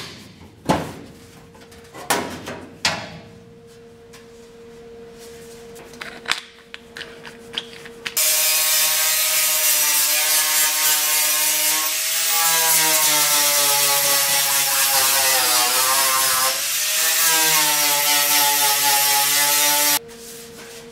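A few knocks and clicks, then about eight seconds in an electric sander starts and grinds bare steel along a chalked plug-weld line, cleaning the panel back so it will weld. Its motor whine sags in pitch as it is pressed onto the metal, and it cuts off suddenly near the end.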